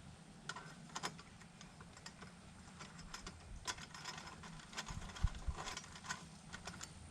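Light, irregular clicks and clinks of small metal exhaust parts being handled and fitted together, thickest in the middle of the stretch.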